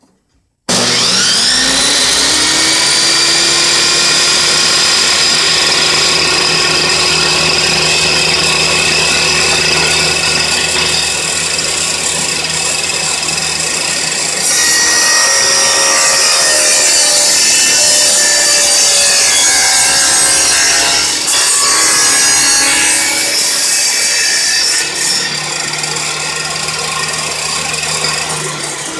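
Benchtop table saw switching on and whining up to speed, then its blade cutting a board fed through it, the sound growing louder and rougher through the cut. The motor begins to wind down at the very end.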